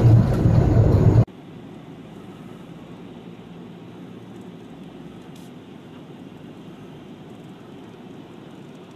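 Loud, steady drone of a heavy truck's engine heard inside the cab, cutting off abruptly about a second in. It gives way to a faint, steady vehicle hum.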